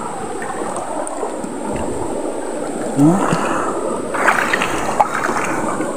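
Shallow stream running fast over stones, with a hand splashing and stirring in the water while groping for snails, the splashing strongest a little past the middle.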